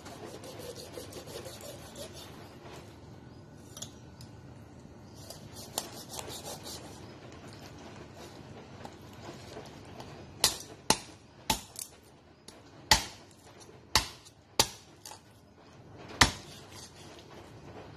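Cleaver chopping a whole raw chicken in half on a cutting board. Quiet cutting and crackling first, then about eight sharp chops in the second half, each a hard knock of the blade through the bird onto the board.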